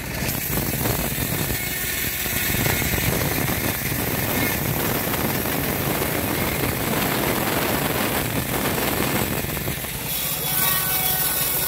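The engine of a homemade bandsaw sawmill running steadily, a continuous mechanical drone that rises slightly about two seconds in and eases again near the end.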